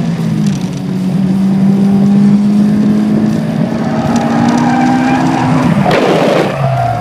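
Honda S2000's four-cylinder engine pulling at high revs with a steady note. About six seconds in the tyres squeal and skid as the car slides out into a spin, and the engine note drops sharply.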